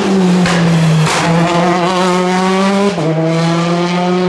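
Peugeot 208 T16 R5 rally car's turbocharged four-cylinder engine running hard at high revs, a loud steady note that breaks off briefly twice, about a second in and again near three seconds, rising slightly in pitch between the breaks.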